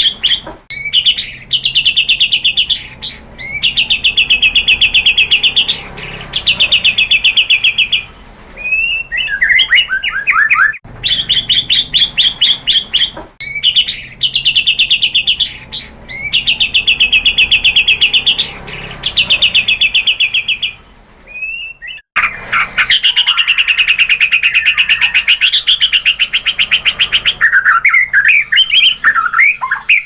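White-rumped shama (murai batu) singing: long, fast trills of rapidly repeated high notes, each lasting a couple of seconds and broken by short upward sweeps. Twice there are brief runs of quick falling slurred notes, a little before halfway and near the end.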